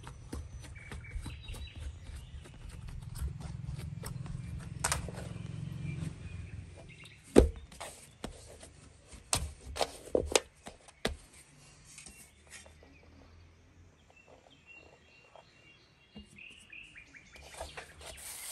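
Bread dough being kneaded by hand in a large aluminium basin: dull pressing thuds, then a few sharp knocks, the loudest about halfway through, and quieter handling as the dough is shaped. Birds chirp in the background.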